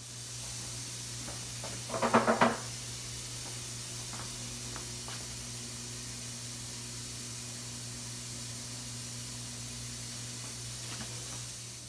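Butter sizzling as it melts in a 10-inch Tramontina nonstick skillet, over a steady low hum. There is a short, louder noise about two seconds in.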